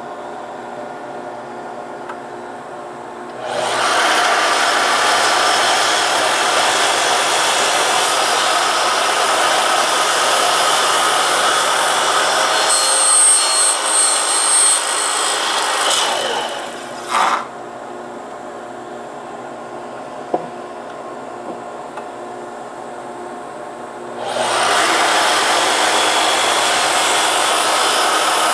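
A dust collector runs steadily through its hoses. About three seconds in, a sliding mitre saw starts up and cuts down through a thick wooden board, much louder than the collector, stopping around seventeen seconds in. About twenty-four seconds in it starts and cuts again.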